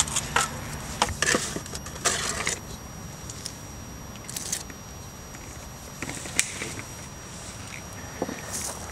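Gravel and soil scraping and clinking in short irregular bursts as gravel is scooped out by hand around plastic ground-loop pipes in a trench.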